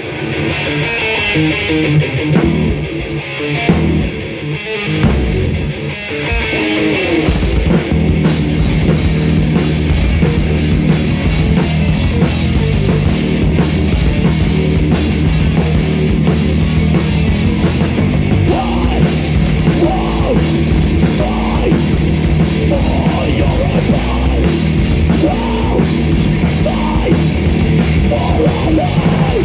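Metal band playing live, with drum kit and electric guitars. Sparser and a little quieter for the first several seconds, then the full band comes in loud and dense about eight seconds in.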